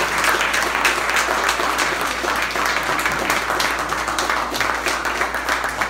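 A small audience applauding: many hands clapping steadily.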